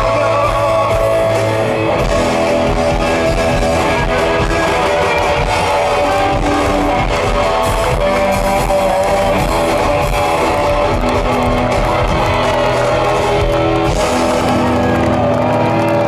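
Live rock band playing: loud, sustained electric guitars over electric bass and a drum kit, steady throughout.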